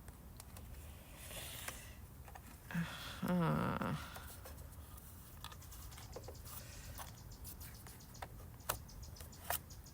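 Light plastic clicks and scraping of a screwdriver working at a stripped screw in a Sony Vaio laptop's case, with a few sharper clicks near the end.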